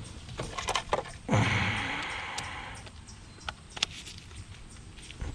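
Hand work on a car's shift linkage: a few sharp clicks, then a longer rustling scrape about a second in that fades out, followed by scattered clicks.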